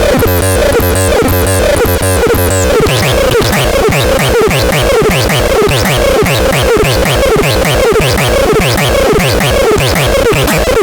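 Loud electronic synthesizer music: a pulsing pattern of held low tones that changes, a few seconds in, into a fast run of repeating downward pitch sweeps.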